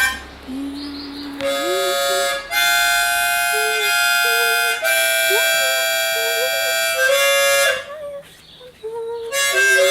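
Background music: a harmonica playing long held chords that change every couple of seconds, with a softer wavering melody line beneath.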